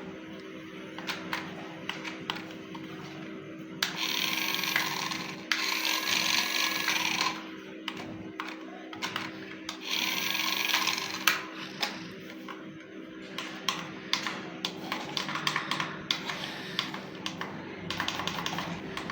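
Small electric motor whirring in three short bursts, with scattered clicks and knocks in between.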